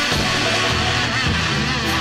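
Live rock-funk band playing an instrumental passage: electric guitar over bass and drums, from a 1973 live recording.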